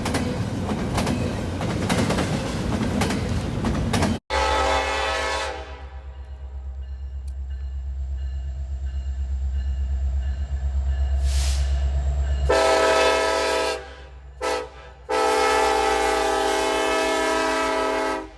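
Train rolling past with its wheels clattering over the rail joints. After a sudden cut, a diesel locomotive's engine throbs low as it approaches and it sounds its multi-chime air horn: one blast about four seconds in, then near the end a long blast, a short one and a long one.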